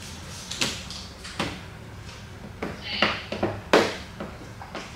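Plastic squeegee and hands working wet paint protection film on a car hood: a series of short, unevenly spaced swishes and scrapes, with a brief squeak about three seconds in.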